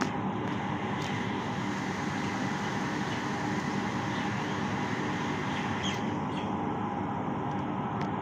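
Steady street background noise with a constant low hum, broken by a few faint clicks about a second in and again near six seconds.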